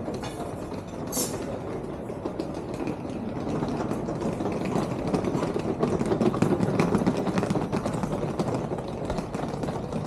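Hard wheels of rolling suitcases clattering over cobblestones: a dense, continuous rattle that grows louder to a peak about midway as the suitcases pass close, then eases off.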